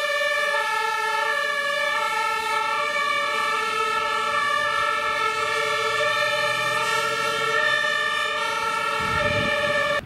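German two-tone fire-service siren (Martinshorn) on responding fire vehicles, stepping back and forth between two pitches, with a truck engine rumbling under it. The sound stops abruptly at the end.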